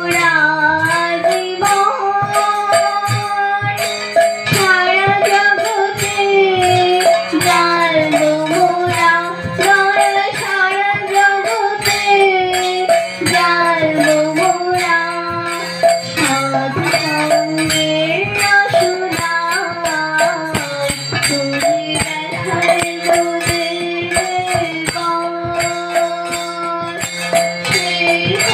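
A woman sings a Bengali devotional song, accompanying herself on a harmonium that holds steady chords under the melody. Hand claps from the seated group keep a regular beat.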